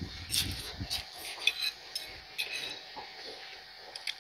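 A person eating noodle soup: mouth and chewing noises with scattered light clicks of a metal spoon against a ceramic bowl, and a brief low rumble in the first second.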